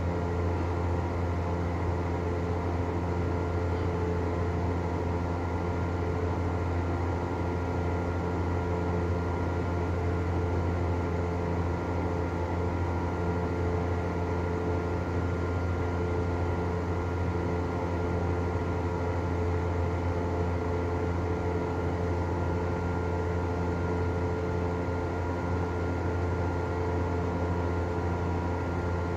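Heller 200 mm exhaust fan running steadily: an even rush of air over a strong, constant low motor hum with a few steady tones above it.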